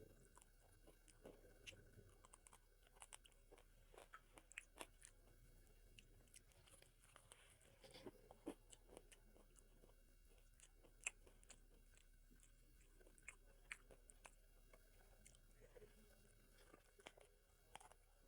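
Faint close-up eating sounds: chewing and biting with many small, irregular crunchy clicks and wet mouth noises.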